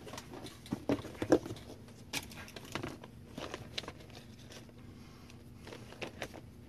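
Faint scattered clicks and small rustles of someone rummaging through small parts off to the side, over a steady low hum.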